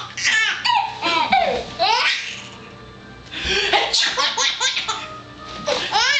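Baby laughing in repeated bursts of high-pitched giggles and belly laughs, in two runs with a short lull about halfway.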